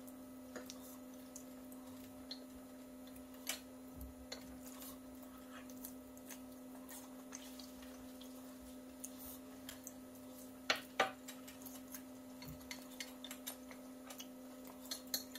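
Faint scattered clicks and taps of chopsticks against a ceramic bowl while noodles are eaten, over a steady low hum. A couple of louder clicks come about eleven seconds in.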